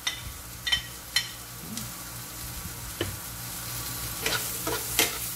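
Carrot strips sizzling as they drop into a hot frying pan of sautéed onion, garlic and ginger. In the first second and a half a metal spoon clinks a few times against a ceramic plate as the strips are scraped off it. Near the end the spoon scrapes and stirs in the pan.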